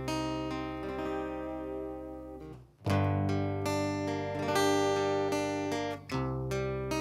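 Acoustic guitar strumming chords over an electric bass guitar in a live band. The music stops short just before three seconds in and again near six seconds, each time coming back on a loud strummed chord.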